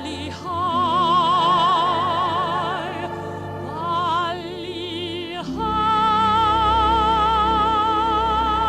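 Orchestral show-tune music with a singer holding long notes in a wide operatic vibrato. About halfway through, the orchestra and voice move onto a loud final held chord.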